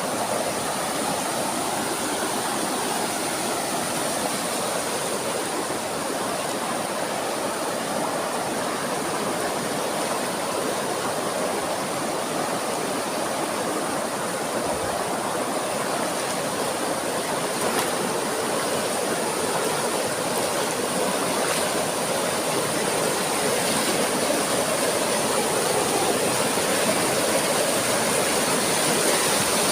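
Rushing water of a small waterfall and its fast river current, a steady wash of noise that grows a little louder near the end.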